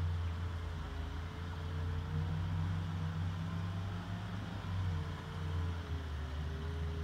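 Distant motorboat engine droning, its faint tone wavering slowly in pitch over a steady low rumble.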